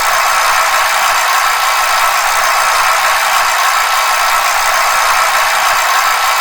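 A bicycle in motion, making a steady whirring hiss with no breaks and no audible rhythm.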